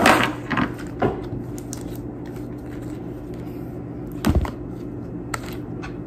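Pink slime being stretched and pulled up off a table, giving a few separate sharp sticky pops and crackles, the strongest right at the start and about four seconds in, over a steady low hum.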